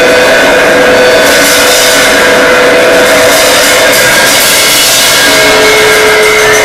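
Loud experimental noise music: amplified metal cans, a cymbal and drums run through echo and delay, making a dense hissing wash with several steady held tones. The high wash thickens about a second in, and the held tones shift, one dropping out about three seconds in and a lower one coming in about five seconds in.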